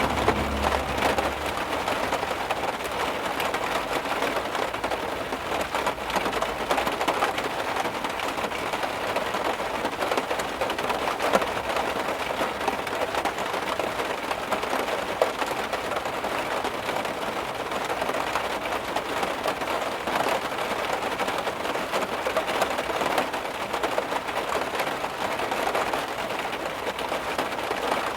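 Heavy rain falling on a car, a dense, steady patter of countless drops hitting the body and glass.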